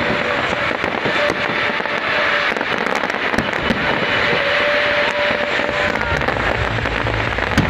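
Fireworks display going off: a dense, continuous crackling with many sharp pops from bursting shells.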